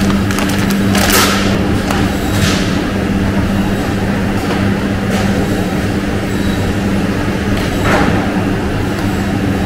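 Steady electric machinery hum of a meat-processing line, with four brief rustles and knocks as pork is handled in plastic bags on a steel table.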